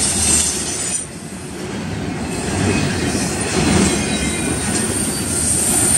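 Double-stack intermodal container well cars rolling past at speed, their wheels rumbling and clattering on the rails, dipping briefly about a second in. A thin, high wheel squeal rides on top, strongest at the start and again near the end.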